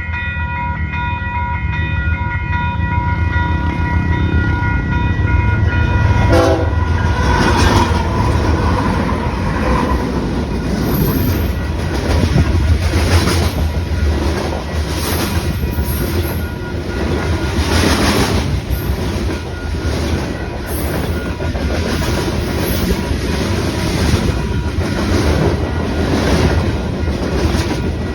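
BNSF GE ES44C4 diesel locomotive's air horn sounding a steady chord, which cuts off about six seconds in. The freight train then passes at speed: a heavy low rumble with the cars' wheels clicking rhythmically over the rail joints.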